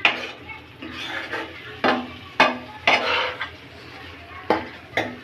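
A spoon stirring chicken pieces in a cooking pan, knocking sharply against the pan about six times, with a low sizzle of the chicken frying underneath.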